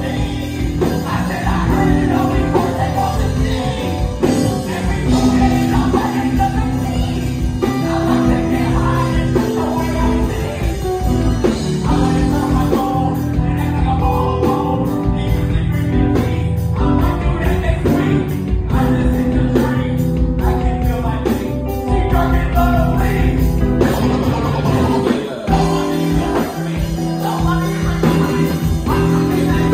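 Live band playing at full volume, with electric guitars, keyboards and drums and a singer on a handheld microphone over them.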